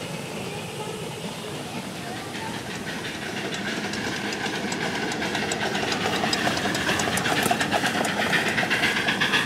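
A 1.5-inch scale live-steam locomotive hauling riding cars on 7.5-inch gauge track, hissing steam, with a rapid run of even clicks that grows louder from about three seconds in as it draws close.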